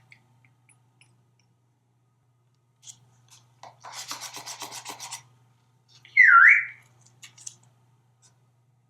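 African grey parrot giving one short, loud whistle that dips in pitch and rises again. It is preceded by a rapid rasping rattle of about a second and a half, with scattered small clicks around it.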